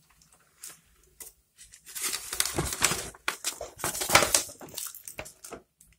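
A folded paper instruction leaflet being unfolded by hand: a few faint taps at first, then from about two seconds in, a stretch of loud paper rustling and crinkling that stops just before the end.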